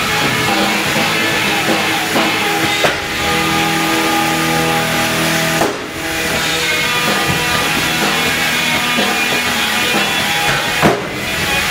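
Background rock music with guitar and drums, with chords changing every few seconds.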